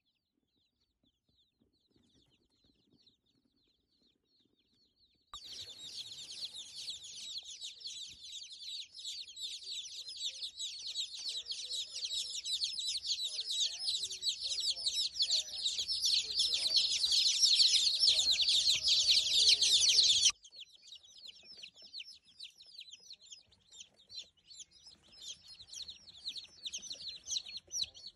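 A crowd of day-old mail-order chicks of mixed breeds (Buff Orpington, Rhode Island Red, Leghorn, Dominique) peeping, many high chirps overlapping. Faint at first, the peeping starts suddenly loud about five seconds in and builds, then drops abruptly about twenty seconds in to sparser, quieter peeping.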